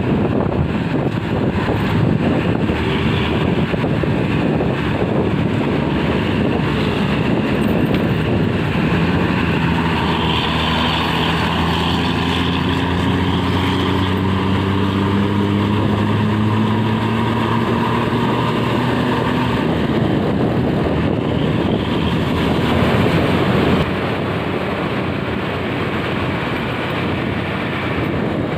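Vehicle on the move: steady road and wind noise, with an engine whose note rises slowly and steadily from about nine seconds in to about twenty seconds in as it accelerates, then fades back into the road noise.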